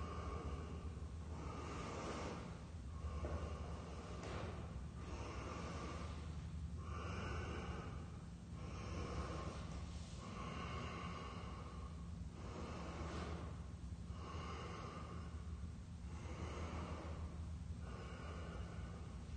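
A man breathing heavily and rhythmically through the nose while exercising, one breath about every second, over a low steady hum.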